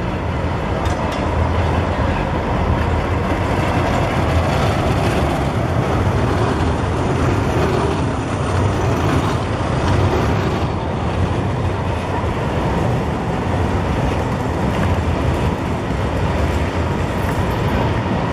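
Modern low-floor electric tram running along a city street, a steady low rumble of wheels on rail mixed with general street noise.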